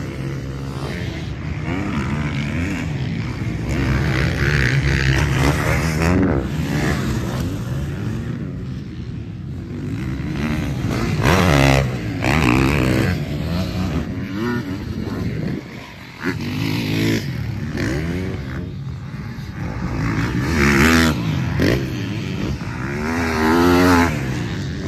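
Dirt bike engines on a motocross track revving up and down, pitch rising and falling with the throttle and gear changes, with louder surges about halfway through and near the end.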